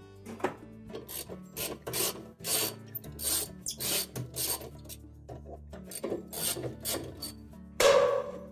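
Ratchet with a half-inch socket and extension worked back and forth on the washer's inner-basket mounting bolts, a short rasping stroke about twice a second. A louder, longer stroke comes near the end.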